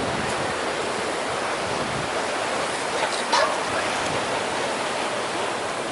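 Steady rushing noise of wind buffeting the microphone, with one brief higher sound about three seconds in.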